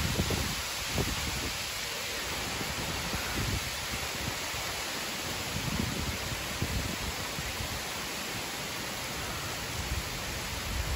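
Heavy rain during a storm: a steady, even hiss of falling rain, with a few short dull low bumps.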